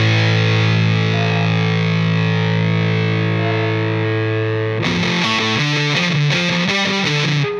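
Background music: a long held chord, then a faster rhythmic part starts about five seconds in.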